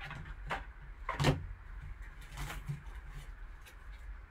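Cardboard card box, its lid and foam insert handled by hand: a few short knocks and scrapes, the loudest and sharpest about a second in, as the encased card is lifted out of the foam.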